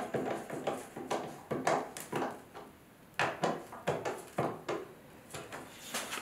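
Hand screwdriver tightening the screws of a bathtub overflow's mounting plate: a run of short clicks and scrapes in clusters, with brief pauses between turns. The screws are being drawn down to seat the overflow gasket.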